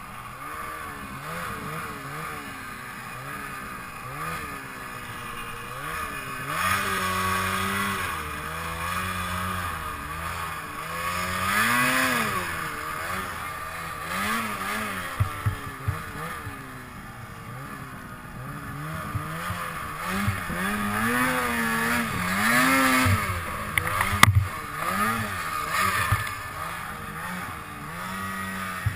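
Polaris snowmobile engine revving up and down again and again as the sled is ridden through deep powder snow, with a sharp knock about two-thirds of the way through.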